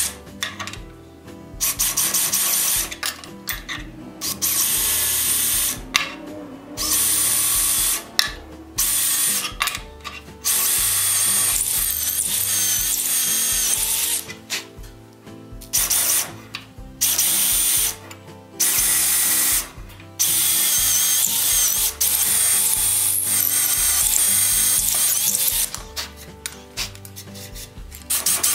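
Cordless drill boring into wood through the holes of a steel plate, run in repeated bursts that start and stop every second or two. Its longest run, about six seconds, comes in the second half.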